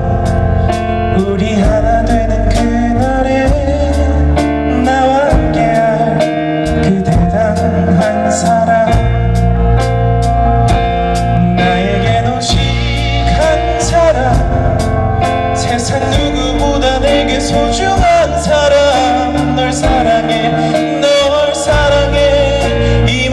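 Live rock band: a male singer singing in Korean over electric guitar, keyboard and drums, with steady cymbal strikes.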